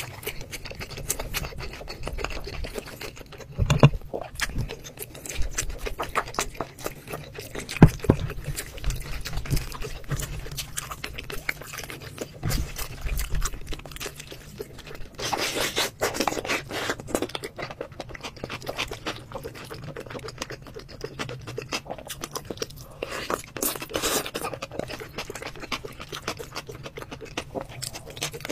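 Close-up eating sounds: a spoon scraping and clicking against a glass bowl and a ceramic pot as rice and braised pork are mixed and scooped, with chewing in between. There are two longer, louder scraping stretches, one near the middle and one about two-thirds in.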